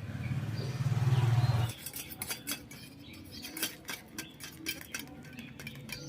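A low hum that cuts off suddenly about a second and a half in, then a run of quick metallic clinks and scrapes: a spoon working ground mustard paste through a metal sieve into a bowl, straining out the bitter husk.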